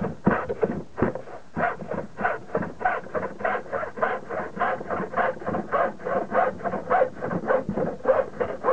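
Hand hacksaw blade cutting through a strip of MDF, rasping in quick, even back-and-forth strokes about three times a second.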